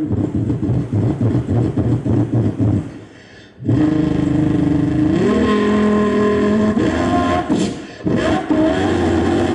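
A man imitating a car engine with his voice into a microphone. First comes a fast pulsing, idle-like rumble, then a short break about three seconds in. After that a held revving note steps up in pitch a little after five seconds and falls away near seven seconds, and the pulsing rumble returns.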